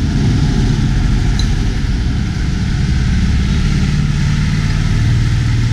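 Steady low rumble of background noise, with no distinct events standing out.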